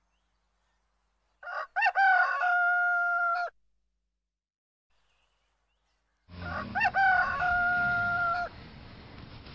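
A rooster crowing twice, each crow a quick rising start then one long held note. The second crow comes over a faint steady background hiss that begins just before it.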